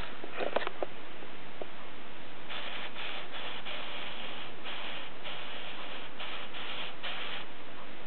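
Groma Kolibri portable typewriter: a few sharp clicks in the first second, then a series of short rasping strokes as the platen knob is turned by hand, rolling the paper through the carriage.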